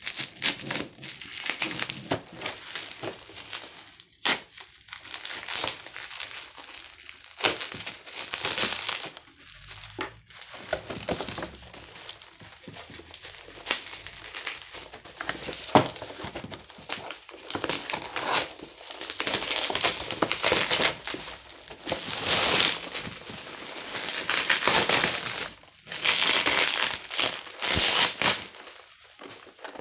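Packaging being unwrapped by hand: irregular crinkling and crumpling with occasional tearing and sharp clicks, stopping and starting throughout.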